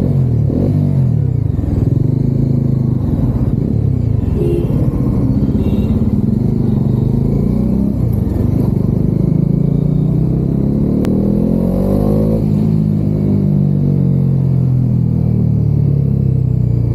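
Bajaj Dominar 400's single-cylinder engine and exhaust, fully warmed up, heard from inside the rider's helmet while riding. The pitch climbs steadily under acceleration from about eight seconds in, then drops away after about twelve seconds.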